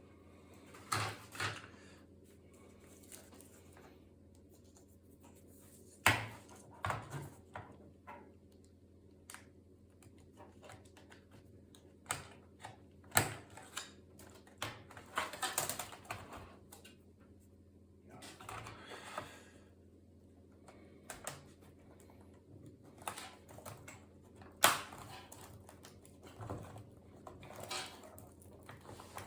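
Irregular clicks, taps and scrapes of hands and small tools handling a laptop's plastic casing and parts, with a few sharper knocks.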